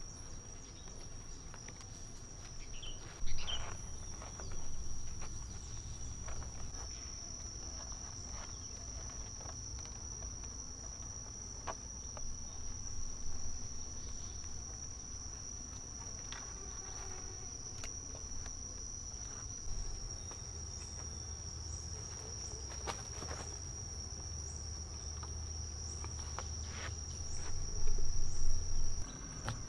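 Insects trilling in one steady high tone, with occasional light knocks and rustles, loudest about three seconds in and near the end.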